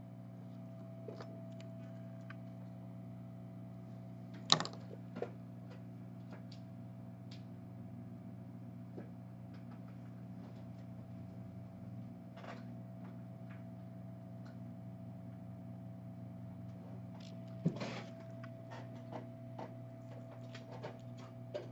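Steady low hum with a few sharp clicks and light taps from small tools handling a phone's replacement charging port on its circuit board. The sharpest click comes about four and a half seconds in, and another cluster comes near the end.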